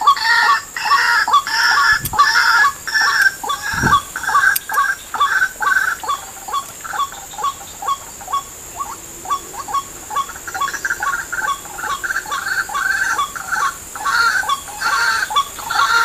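A bird calling in a long run of short, evenly repeated notes, about two or three a second.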